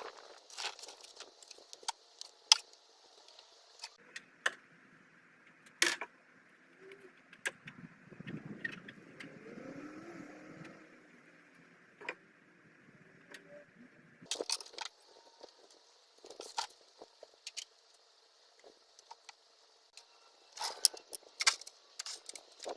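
Scattered clinks, clicks and knocks of tools and parts being handled and moved about in a garage workshop, over a faint steady hiss. A low rumble swells and fades about eight to eleven seconds in.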